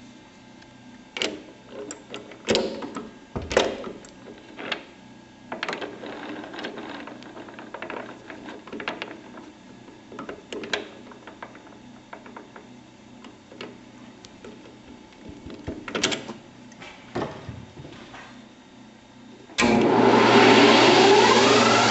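Scattered clicks and knocks over a low steady hum while the CNC-converted Grizzly G0602 lathe stands stopped, then near the end the lathe starts up abruptly with a loud rush and a whine that rises in pitch and settles to a steady tone as the spindle comes up to speed.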